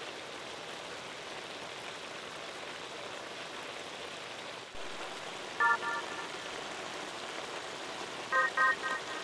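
Beef, onions and soy sauce simmering in a wok, a steady hiss of sizzling. Twice, more than halfway through and again near the end, short quick runs of bright beeping tones sound over it.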